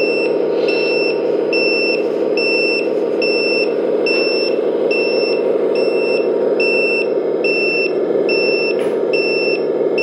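Sound module of a 1/14 LESU Benz 6x6 RC dump truck playing a steady diesel truck engine sound, with a reversing beeper sounding evenly about once every 0.8 seconds: the truck is backing up.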